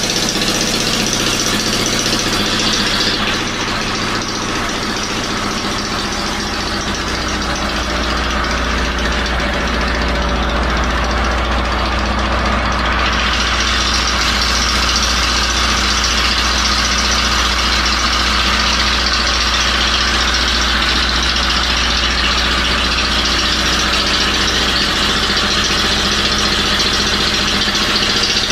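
Small portable generator engine running steadily at an even idle. The builder claims it runs on gas made from water in an electrolysis cell rather than on petrol.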